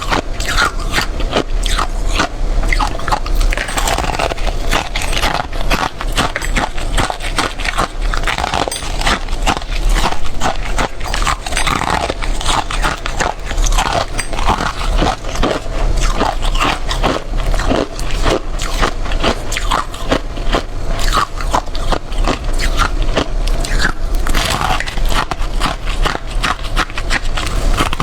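Close-up biting and chewing of powdery freezer frost, a dense run of rapid, crackly crunches.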